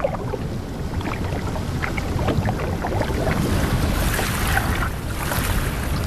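Steady wash of sea water with a low rumble and scattered small ticks.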